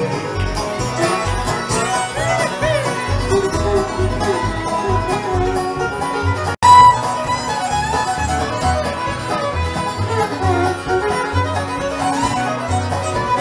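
Live bluegrass band with a fiddle playing lead over upright bass and resonator guitar. About halfway through, the sound drops out for a split second.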